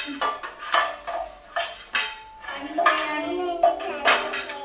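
Metal pots and utensils clattering, a series of sharp knocks and clinks, several with a brief ring.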